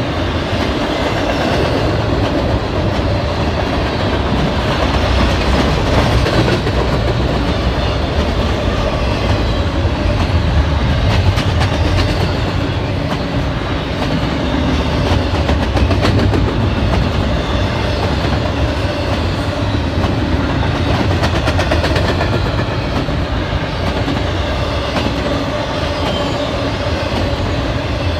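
Double-stack intermodal container cars rolling past close by, a steady heavy rumble of steel wheels on rail with scattered clicks as the wheels cross rail joints.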